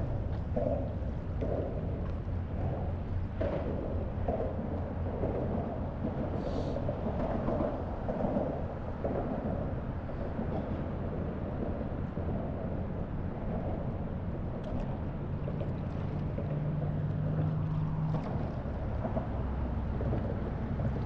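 Small waves lapping and sloshing against a paddleboard close to the microphone, over a steady low rumble. A short low hum comes in about 15 seconds in and stops about three seconds later.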